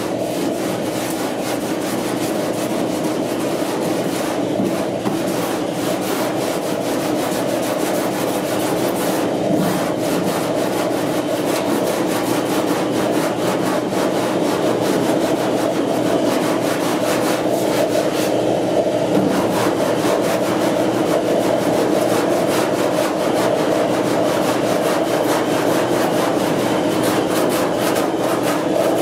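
Surform "cheese grater" file scraped back and forth by hand across body filler on a pickup's rear cab panel, a steady dry rasping with a few brief pauses. This is the rough shaping of freshly set filler, before block sanding.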